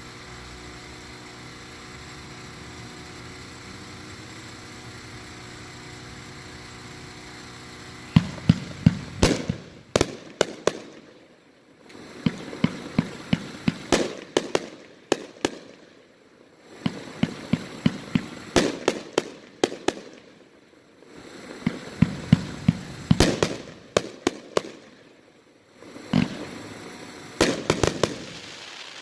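A 25-shot consumer firework cake (Street Outlaw) firing, its shots and crackling bursts coming in rapid clusters broken by short gaps of about a second. It starts about eight seconds in, after a steady low hum.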